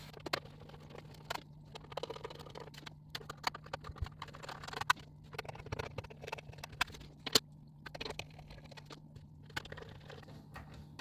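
Screws being driven back into a DVR recorder's case with a screwdriver: irregular small clicks, taps and short scrapes, over a steady low hum.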